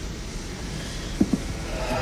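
Radio-drama sound effects of a dying fire being tended: a steady low rumble with two light knocks about a second in. Faint music comes in near the end.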